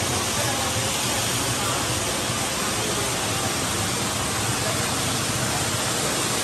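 Waterfall rushing steadily over broad rock slabs, a constant even wash of water noise.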